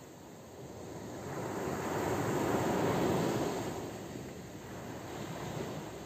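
Ocean surf: one wave swells up, peaks about halfway through and washes back, then another begins to build near the end.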